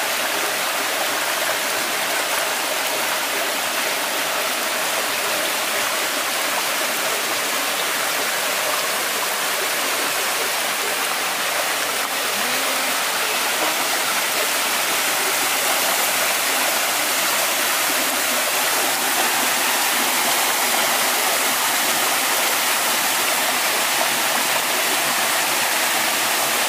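Shallow stream running fast over rocks and pouring through a small cascade: a steady rush and splash of water.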